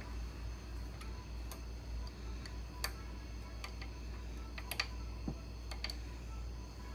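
Irregular light clicks and ticks from a lathe tailstock handwheel being turned a little at a time to press pen parts together. They run over a steady low hum.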